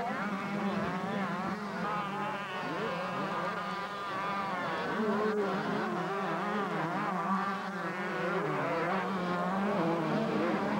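Several 125cc two-stroke motocross bikes revving hard around the track, their engine notes rising and falling and overlapping.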